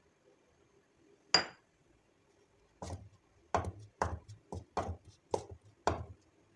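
A single ringing clink of a glass bowl against a steel mixing bowl, then a run of about seven short scraping knocks as a hand mixes flour in the steel bowl.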